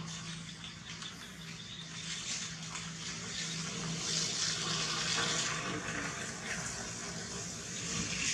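A steady rushing hiss that swells about halfway through, over a faint low steady hum.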